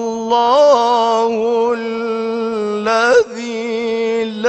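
A male reciter's voice holding a long, steady note in melodic Quran recitation (tajweed), with two short ornamental turns in pitch, about half a second in and about three seconds in.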